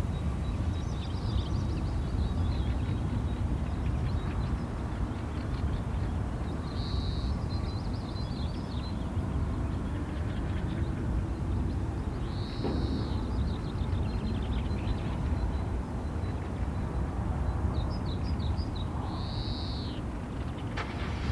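Wild birds calling: short high chirps and rapid trills that come every few seconds, over a steady low rumble.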